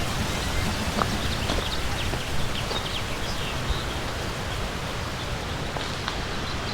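Steady rushing noise of falling or running water, with a few short, faint bird chirps over it.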